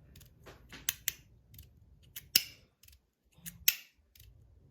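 Stainless-steel-bodied Rapt slider fidget being worked by hand: its plates slide and snap into their steps with a run of irregular sharp metallic clicks, a few loud snaps among quieter ones.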